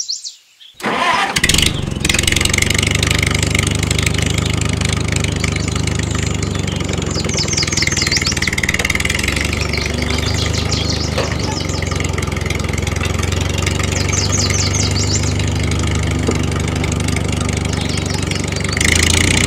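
Tractor engine starting about a second in, then running steadily at idle. Birds chirp over it a couple of times.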